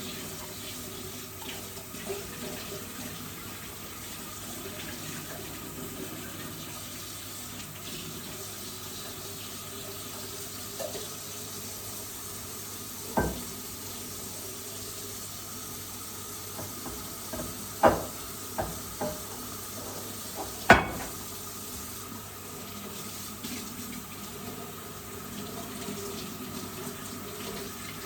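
Water running from a tap into a sink, with a few sharp knocks of things bumped against it, the loudest two in the second half.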